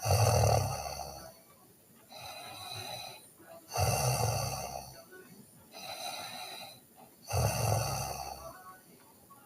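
A sleeping person snoring: three loud snores about three and a half seconds apart, each with a deep rumble, and softer breaths out between them.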